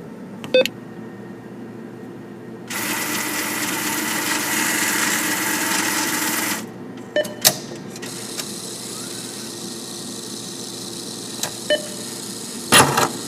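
ATM withdrawal: a single keypad beep, then the cash dispenser whirring steadily for about four seconds as it counts out banknotes. Two clicks follow, then a quieter hum, two more short beeps and a clatter near the end.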